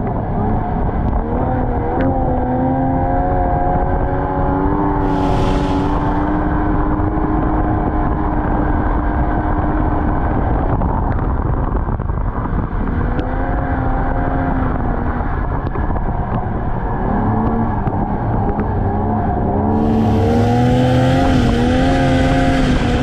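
Snowmobile engine running under way, its pitch rising and falling as the throttle changes. Two bursts of hiss break in, briefly about five seconds in and again for the last few seconds.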